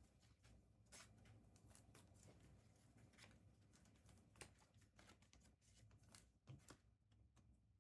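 Faint scattered rustles and light clicks of trading cards and packs being handled and flipped through, barely above near silence.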